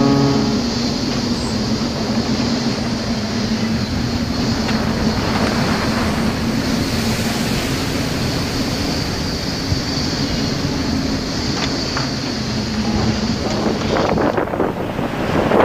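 Storm at sea heard aboard a ship: dense rushing noise of wind and breaking waves over a steady low hum. About 14 seconds in the hum drops away and the sound turns to rougher wind buffeting the microphone and surf.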